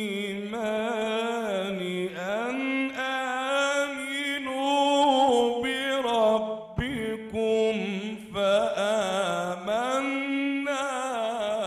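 A man's solo voice recites the Quran in the slow, melodic mujawwad style. He sings long held notes with wavering, ornamented turns of pitch and takes a short breath about seven seconds in.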